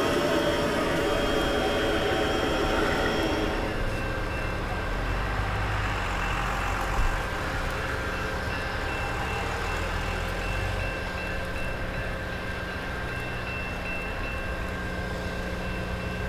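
Amtrak Superliner passenger train rolling away over the rails. Wheel and rail noise is loudest in the first few seconds, then drops to a steadier, quieter rumble as the train recedes.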